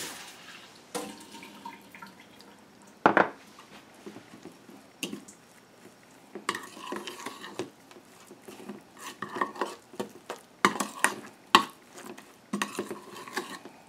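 Metal spoon stirring a wet curry paste in a bowl, scraping and clicking against the sides. The strokes are sparse at first, with one sharper knock about three seconds in, and become quicker and busier from about halfway through.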